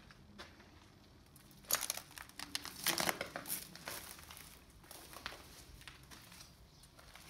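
Footsteps crunching on broken glass and debris: a cluster of crackling crunches from a little under two seconds in, loudest for the next two seconds, then thinning out.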